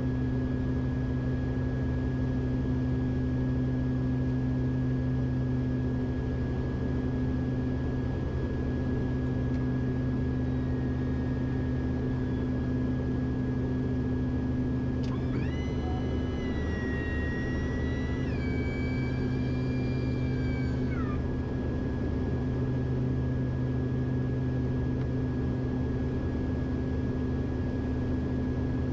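Beechcraft King Air's twin PT6A turboprop engines and propellers droning steadily, heard inside the cockpit, with a constant low hum and a thin high tone. About halfway through, a brief pitched tone steps in pitch a few times over about six seconds and ends with a short downward glide.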